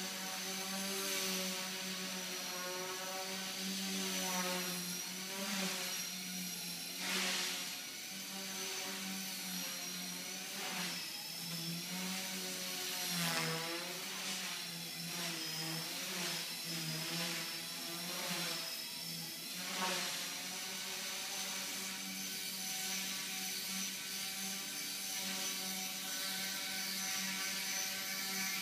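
Axe 100 SS micro RC helicopter in flight: the brushless main motor and rotors buzz steadily, with a thin high motor whine above. The pitch wavers up and down throughout, most of all in the middle.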